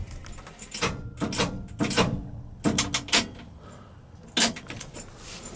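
Scattered clicks, knocks and rustles at irregular intervals, with no steady engine sound: a camera and hands moving about inside a pickup's cab.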